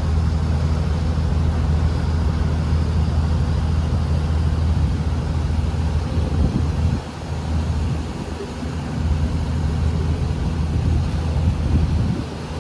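Fishing boat's engine running steadily with a low hum, over a steady hiss of wind and water; the hum dips briefly about seven seconds in.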